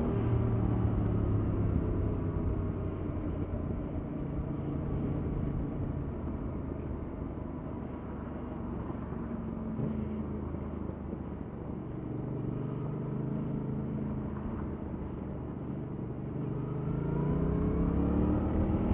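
Yamaha MT-07's 689 cc parallel-twin engine with its stock exhaust, on the move: the revs drop at the start, hold low and fairly steady through the middle, then climb again near the end as the bike accelerates.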